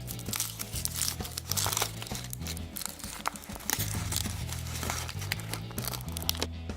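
Foil wrapper of a chocolate surprise egg crinkling and tearing as it is peeled off by hand, in many quick crackles, over background music.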